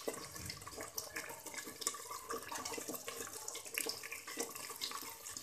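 Onion paste sizzling and crackling in plenty of hot oil as it is stirred with a wooden spoon, frying toward lightly golden.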